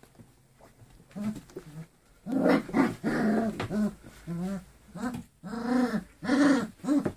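Puppies barking in play: a run of short, pitched yaps that starts about a second in and gets much louder from about two seconds in.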